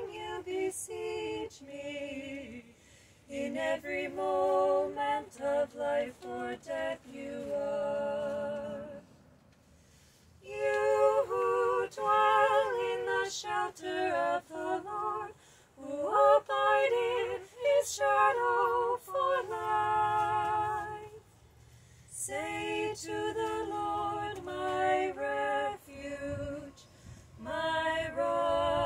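Two women singing a cappella together, in sung phrases broken by short pauses, the longest about nine seconds in.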